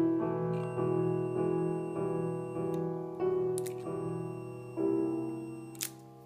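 Background classical piano music, notes struck about once or twice a second, with two brief clicks in the second half.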